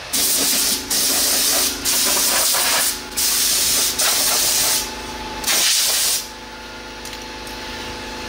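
Compressed-air blow gun hissing in five blasts over the first six seconds, blowing dust off an acrylic panel. A steady hum continues underneath and after the last blast.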